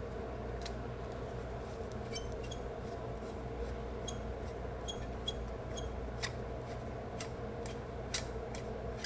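Small, irregular metallic clicks and light clinks of a screwdriver and fingers working the main jet into a small-engine carburetor, a dozen or so, the loudest near the end. A steady low hum runs underneath.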